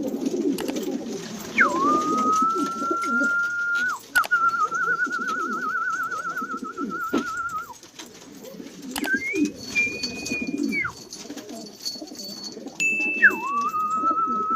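Domestic pigeons cooing, with four long, steady whistled notes over them, the second one warbling.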